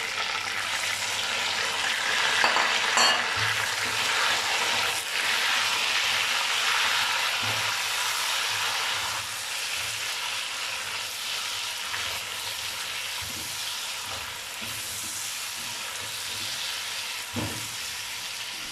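Chicken pieces and chopped tomatoes sizzling in hot oil in a karahi, stirred with a silicone spatula: a steady frying hiss with occasional faint scrapes of the spatula, easing a little in level toward the end.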